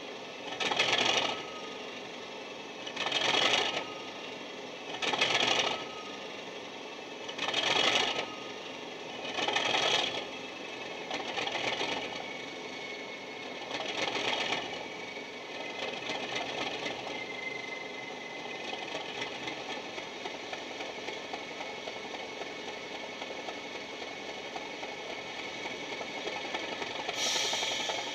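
Loksound 5 sound decoder playing Jamie Goodman's Class 37 diesel sound through a small EM1 speaker in a stationary model locomotive, running its long cold-start sequence. Loud bursts come about every two seconds and weaken over about fifteen seconds. They settle into a steady mechanical running sound, with one more burst near the end.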